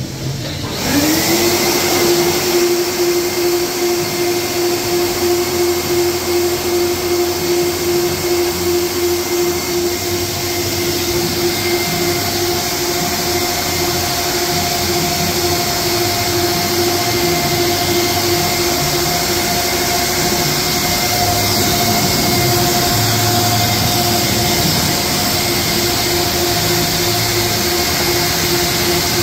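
Air Shammee car-wash air dryer blowing through its hose. The blower starts about a second in, its whine rising quickly and then holding one steady pitch over a loud rush of air.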